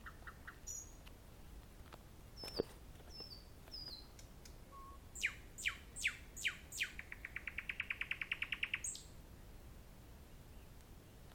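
Nightingale singing: a few short high notes, then four loud downward-sweeping notes and a fast, even trill of about ten notes a second that ends about nine seconds in.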